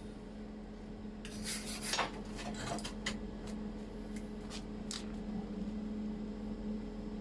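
Rasping scraping on metal for about two seconds, then a few separate sharp clicks, over a steady low electrical hum.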